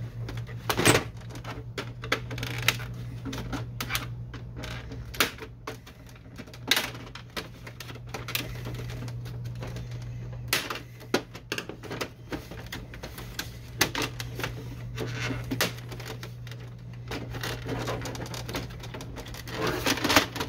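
Irregular plastic clicks, snaps and rattles as the clips of a Canon Pixma MG5520 printer's control panel are pressed and the panel is pried and handled, over a steady low hum.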